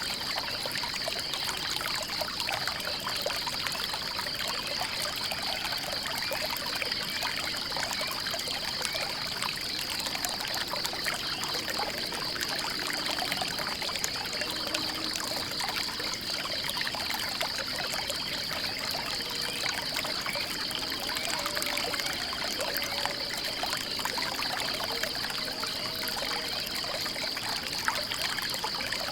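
Water trickling and splashing, like a small stream or runoff, with a steady, high, fast-pulsing trill behind it.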